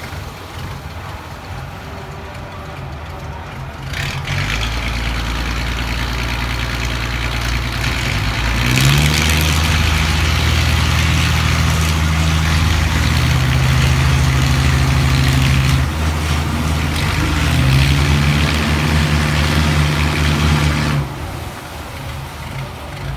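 Fishing boat's inboard diesel engine running, throttled up about four seconds in and harder again near nine seconds as the propeller drives the turn, easing briefly near sixteen seconds, picking up again, then dropping back toward idle a couple of seconds before the end.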